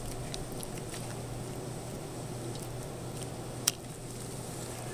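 Steady low room hum with a few faint clicks and one sharper click about three-quarters of the way through, from metal dissecting scissors and forceps snipping and handling tissue.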